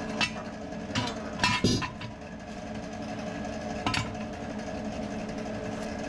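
Metal clinks and knocks from handling a steel Dana 44 front axle tube between welding tacks: a few sharp strikes in the first two seconds and another about four seconds in. A steady mechanical hum runs underneath.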